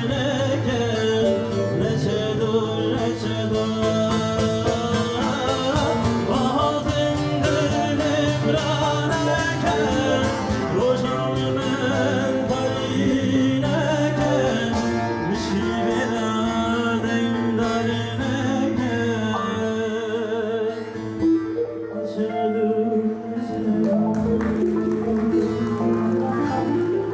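Live Kurdish folk song: a man singing to his own strummed bağlama (saz), with keyboard accompaniment holding sustained low notes underneath.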